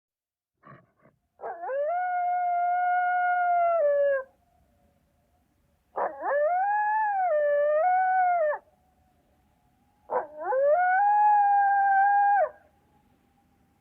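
A canine howling: three long, steady howls, each rising at the start and falling away at the end, with the middle one dipping in pitch halfway. Two short yelps come just before the first howl.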